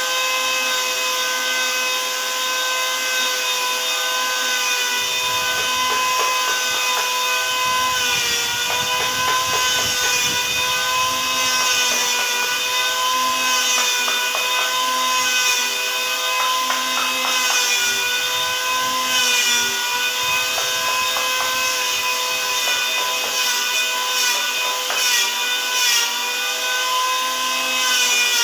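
Electric woodworking machine running with a steady motor whine while cutting wood. Its pitch dips slightly several times as it bites into the wood, with scattered short scraping clicks.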